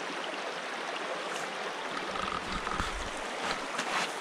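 Steady rush of a mountain stream flowing over rocks, with a few faint knocks near the end.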